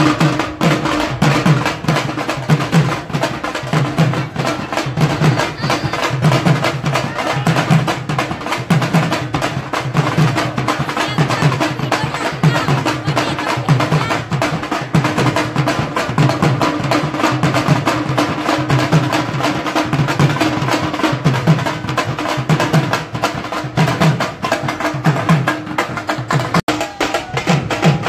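Two shoulder-slung drums beaten with sticks in a fast, continuous dance rhythm: deep strokes about two or three times a second under a rapid patter of sharp stick hits.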